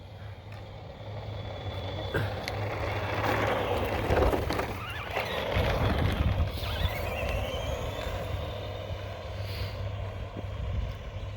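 ECX Amp Crush RC monster truck running at full speed toward and past the microphone: electric motor whine and tyre noise on the road grow louder, peak about four to six seconds in, then fade as it drives away.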